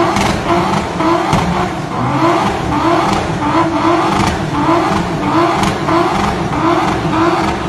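Audi S4 B5's twin-turbo V6 held at high revs in a tyre-smoking burnout, its note rising and dropping back in a steady pulse about twice a second.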